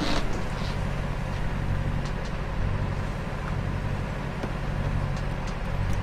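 A boat's engine running with a steady low hum. Faint clicks and rustles of camera gear being handled come now and then, the sharpest one at the very start.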